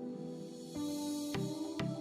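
Electronic background music: held chords, with a steady beat of sharp hits coming in about halfway through.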